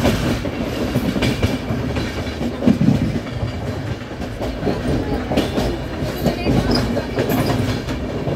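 Passenger express coach wheels rolling over the rails at slow speed, heard from inside the coach through an open barred window. A continuous rumble with irregular clacks and knocks as the wheels cross rail joints.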